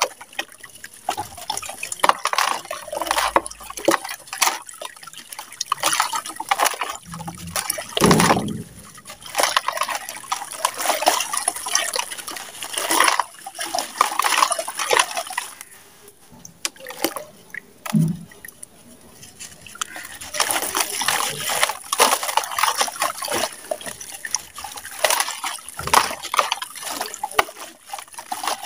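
Gritty, dusty chunks crumbled by hand into a plastic tub of water, grains and pieces falling into the water in irregular bursts, with a couple of louder splashes where bigger pieces drop in.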